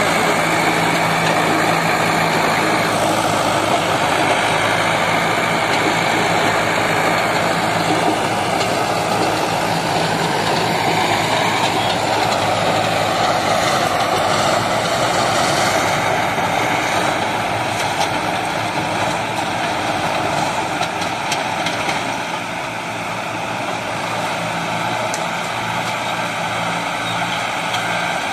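Sonalika tractor's diesel engine running steadily under load while driving a super seeder, its rotor churning dry soil; a loud, continuous machine noise that eases slightly in the last few seconds.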